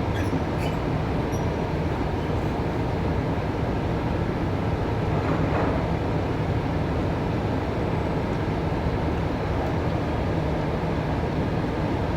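Steady, low mechanical rumble of port cargo-handling machinery during container loading, with a few faint clicks just after the start.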